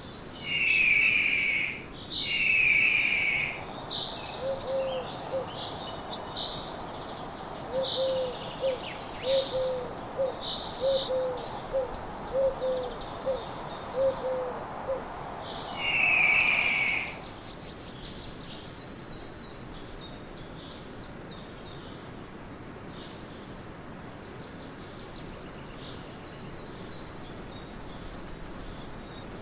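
Birds calling: two long, loud calls at the start and a third about sixteen seconds in, a run of about a dozen short low hoots in between, and high chirps throughout. After about seventeen seconds only a faint hiss remains, with occasional chirps.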